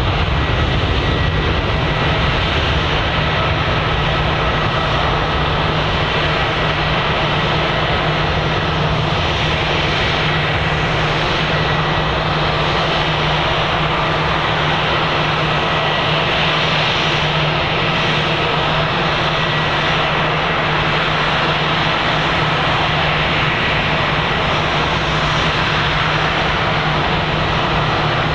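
Boeing 757-200 twin jet engines at takeoff thrust as the airliner rolls down the runway, lifts off and climbs away: a loud, steady jet rumble with a thin high whine running through it.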